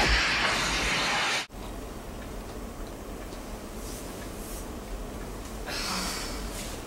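A loud rushing, crackling noise effect that cuts off abruptly about a second and a half in, leaving a quieter steady background hiss.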